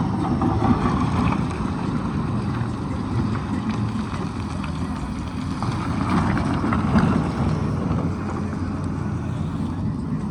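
Diesel engine of a Tata Hitachi excavator running steadily, with a low hum and a few swells in loudness as it works.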